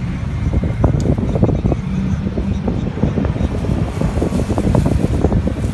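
Aquarium air pump buzzing steadily, with air bubbles gurgling and popping in the tank water.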